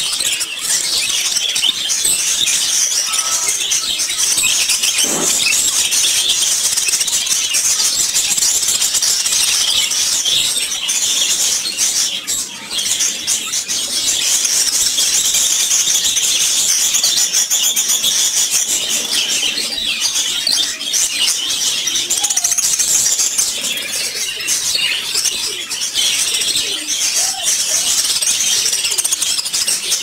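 A flock of caged budgerigars chattering: a dense, continuous mass of high chirps and warbles, with a few lower, gliding calls standing out now and then.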